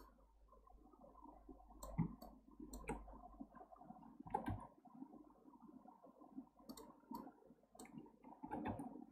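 Computer mouse and keyboard clicks: about half a dozen faint, sharp clicks spaced irregularly, a second or more apart.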